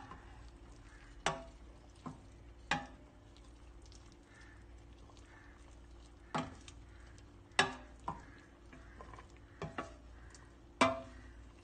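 A wooden spoon stirs shredded macapuno coconut strips in a stainless steel pot, knocking against the pot's side at irregular intervals of a second or more. The loudest knocks come in the second half.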